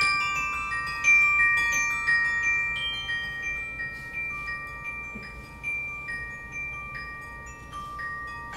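Tuned mallet percussion played with two mallets: single high notes struck one after another, roughly one or two a second, each ringing on for several seconds so that the notes overlap.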